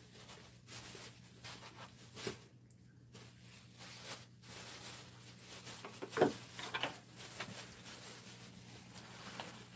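Quiet eating sounds: noodles slurped and chewed, with scattered light clicks and taps of chopsticks.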